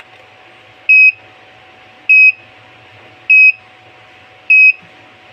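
The Arduino Morse code transceiver's buzzer sounds four short, equal, high-pitched beeps a little over a second apart. It is playing back a batch of received Morse symbols one at a time, with a pause of about a second between each.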